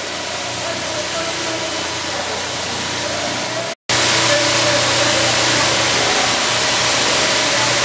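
Wastewater treatment plant machinery running, a loud steady hiss with a constant hum under it. It cuts out for an instant almost four seconds in and comes back slightly louder.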